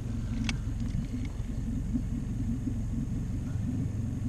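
Small outboard motor idling with a steady low rumble, its firing pulses even and unchanging. A single short click about half a second in, with a few faint ticks after it.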